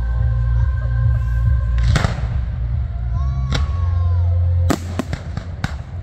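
Fireworks bursting: a sharp bang about two seconds in, another past halfway, then a quick run of bangs near the end. Music with a heavy bass plays under them and drops away just before the run of bangs.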